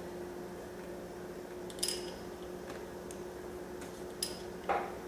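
A few light clicks and a duller knock from the vanes and rotor of a forced-air heater's rotary air pump being handled and turned, over a steady low hum. One vane is sticking in its slot instead of falling freely.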